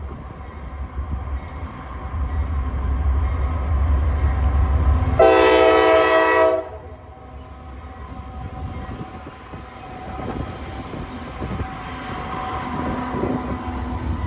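Diesel freight locomotives rumbling in low and building, then one short blast of a Nathan K5HL five-chime horn about five seconds in, cut off sharply after about a second and a half. After it, the train rolls by more quietly.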